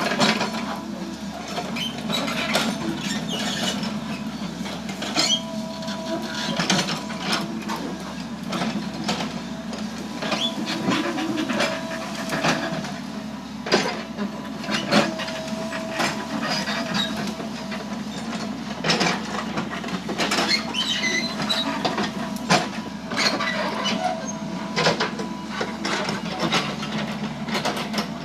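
Foton Lovol FR150-7 crawler excavator running steadily under load, with frequent sharp metal clanks and knocks from the bucket and tracks as it pushes earth and brush.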